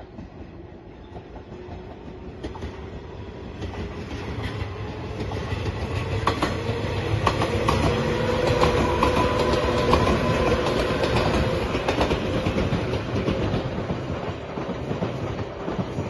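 JR 115 series electric multiple unit passing, its wheels clacking over rail joints. The rumble builds to its loudest about halfway through, with a steady whine over it, then eases off.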